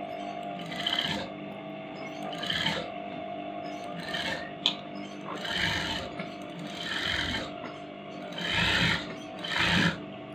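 Sewing machine stitching in short bursts every second or two while fabric is guided by hand, understitching the lining along a neckline edge; one sharp click about four and a half seconds in.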